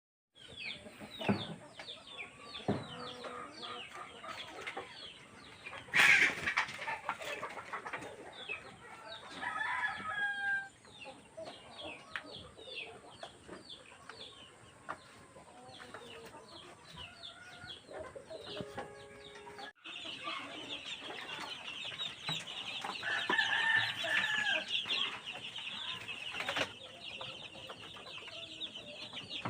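A crowd of layer chicks peeping, many short high cheeps overlapping, with a sharp knock about six seconds in. About twenty seconds in it cuts to a denser, continuous chorus of cheeping.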